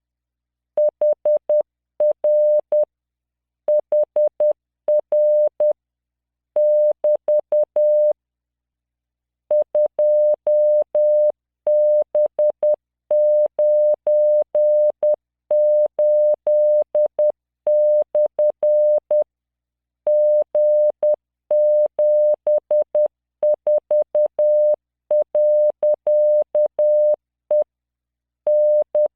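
Computer-generated Morse code practice tone: a single 600 Hz beep keyed on and off in dots and dashes at 10 words per minute. It sends random five-character code groups, with longer pauses between the groups.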